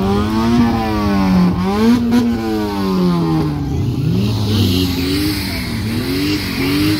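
Car engines revved hard again and again, the pitch climbing and dropping in long sweeps at first. From about four seconds in it turns to quicker, shorter rev blips, a little more than one a second.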